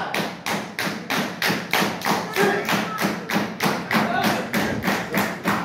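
Rapid, evenly spaced thumping, about four thuds a second, keeping a steady rhythm throughout, with a few faint voices under it.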